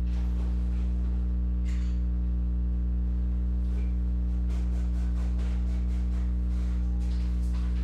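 Steady low electrical hum with a ladder of overtones, the loudest thing throughout, over faint rustles and light taps of trading-card packaging being handled.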